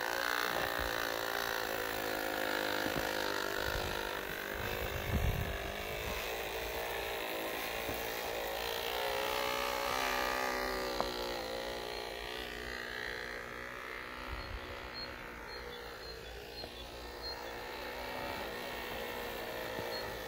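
Small electric motors and Lego gearing of a home-built model snow blower train whining as it ploughs through snow, the whine sliding up and down in pitch as the load changes. There are a few low thumps about five seconds in and a sharp click about halfway through.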